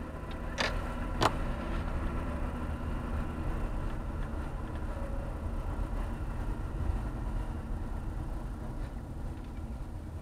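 A car driving slowly, heard from inside the cabin as a steady low engine and tyre rumble. Two sharp clicks come within the first second and a half.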